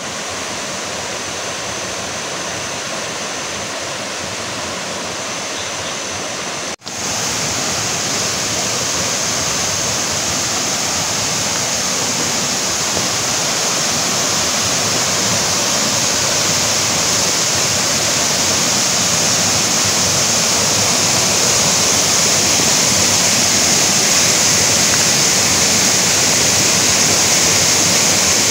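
Curug Cisaat waterfall rushing steadily, a continuous roar of falling water. After a brief break about seven seconds in it is louder and brighter, and it swells slightly toward the end.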